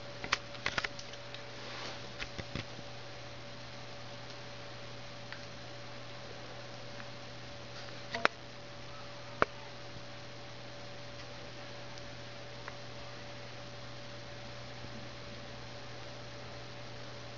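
Steady electrical hum with a faint higher steady tone from a Dell desktop computer running through its boot-up. A few small clicks come in the first couple of seconds, and two sharp clicks come about eight and nine seconds in.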